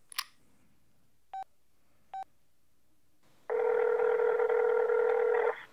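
Mobile phone placing a call: two short keypad beeps about a second apart, then the ringback tone of the outgoing call, one steady ring held for about two seconds before it cuts off.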